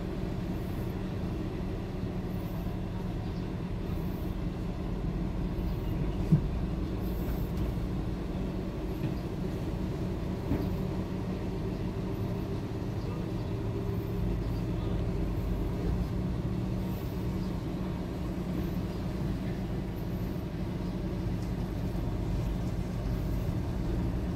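Truck engine running steadily, with one sharp knock about six seconds in.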